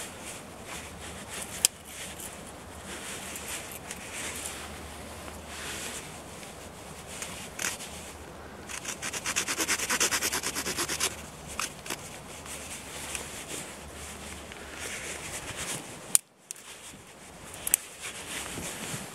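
Small knife blade scraping bark off a thin stick in short strokes, with a quick run of rapid, even scrapes about halfway through. A few sharp clicks of the blade against the wood stand out, the loudest near the start and near the end.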